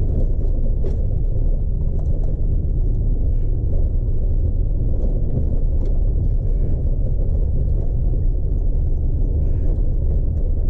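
Chevy Colorado ZR2 pickup driving up a dirt trail, heard from inside the cab: a steady low rumble of engine and tyres on gravel, with scattered small clicks and knocks.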